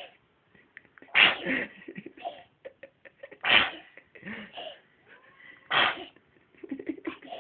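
A little girl sneezing three times in a row, about two seconds apart.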